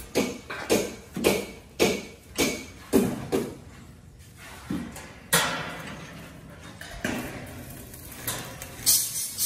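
Steel decking sheets being banged and handled by workers: a run of sharp metal knocks about two a second, then a louder crash with a rattling decay about five seconds in, and one more knock near the end.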